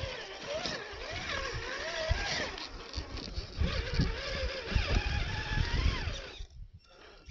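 Electric motor and gearbox of a 1/10-scale Traxxas TRX-4 RC crawler whining, the pitch rising and falling with the throttle, over irregular low knocks and rumble. It dies away about six and a half seconds in.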